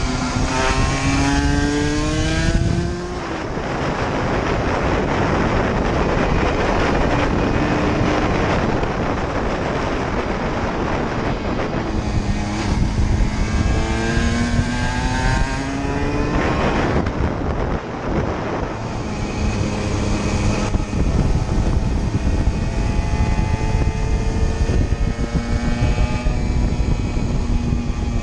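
Aprilia RS125's 125 cc single-cylinder two-stroke engine ridden at full throttle, its pitch climbing hard through the revs twice and dropping suddenly between pulls, with long stretches where a rushing noise covers the engine.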